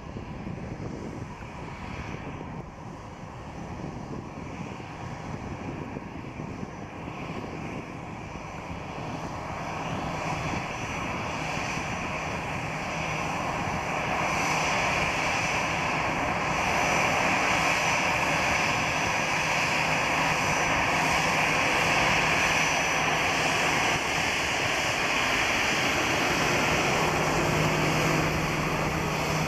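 Airbus A320 airliner's twin jet engines running at taxi power as it taxis by: a steady rushing hum with a high whine, growing louder toward the middle and then staying loud.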